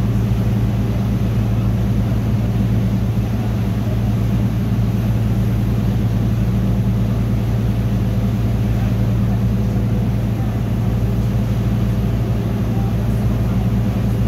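The engine of the boat being filmed from, running with a steady low drone, heard on board.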